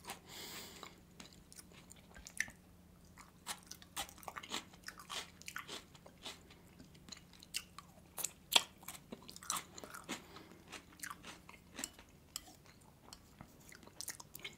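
A person chewing food close to the microphone, with many small, sharp wet mouth clicks scattered throughout.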